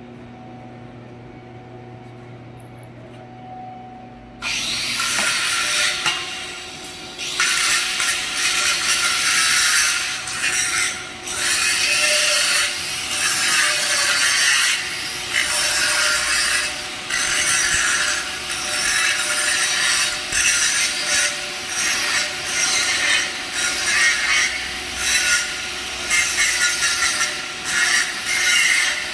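Electric arc (stick) welding on a steel pipe joint. After about four seconds of steady electrical hum, the arc strikes and crackles and sizzles loudly and steadily, with short dips now and then.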